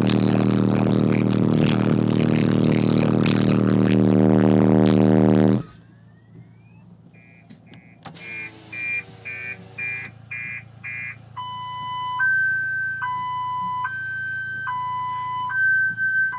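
A car stereo's two 12-inch subwoofers play bass-heavy rap at high volume, and the music cuts off abruptly about six seconds in. A car alarm then goes off, set off by the bass: first a run of quick chirps about twice a second, then a two-tone siren switching between a low and a higher note a little under once a second.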